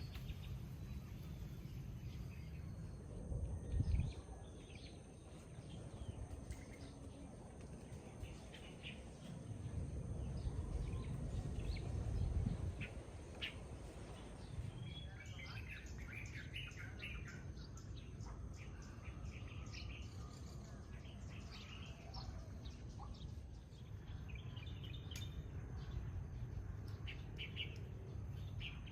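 Small birds chirping on and off, short scattered calls, over a low rumble that swells briefly about four seconds in and again around ten to twelve seconds.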